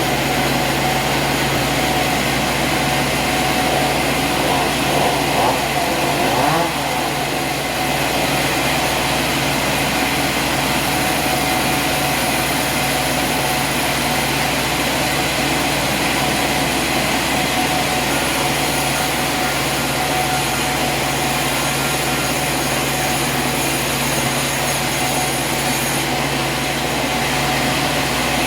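Sawmill machinery running steadily, with a constant hum. A brief wavering change in pitch comes about five seconds in.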